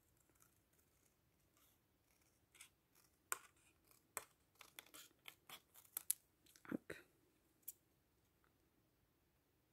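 Small scissors snipping as a stamp is trimmed along a traced line: a scattered run of faint, short snips, starting a couple of seconds in and stopping at about eight seconds.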